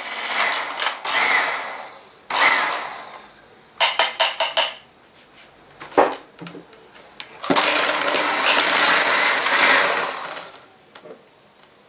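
Electric hand mixer running in two stretches, whisking egg whites and then beating egg yolks with brown sugar in a plastic jug. Between the runs come a quick cluster of clattering knocks and then a single knock.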